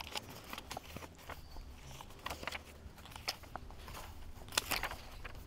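Paper rustling and crackling as the pages of a book are handled at a lectern microphone, in small irregular clicks with a louder rustle near the end.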